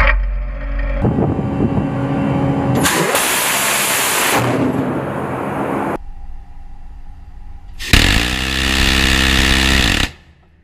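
Phalanx CIWS Gatling gun firing a burst of about two seconds near the end: a dense, buzzing roar whose pitch rises as the barrels spin up and falls as they spin down, then cuts off. Earlier, about three seconds in, another loud burst of gunfire lasts a second and a half.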